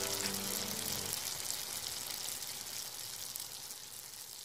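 Sizzling hiss of food frying in a pan, a sound effect, steady and slowly fading out. A few musical notes end about a second in.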